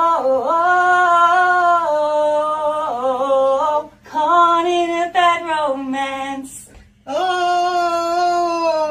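A woman singing long, held notes with slow slides between them, in phrases broken by short pauses about four and seven seconds in.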